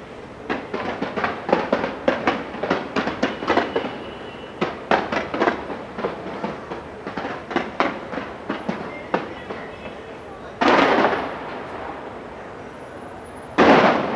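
Aerial fireworks going off: rapid volleys of sharp bangs and crackles, several a second, for about nine seconds. These are followed by two louder, longer blasts about three seconds apart near the end.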